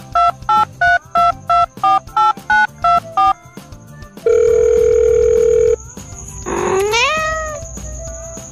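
A quick run of about a dozen telephone keypad touch-tone beeps, then a steady tone for about a second and a half. A cat's rising meow comes near the end.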